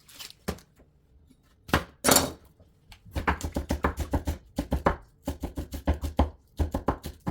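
Knife chopping on a cutting board, a quick run of knocks at about five a second starting about three seconds in, after a few scattered knocks; cutting potatoes into fries.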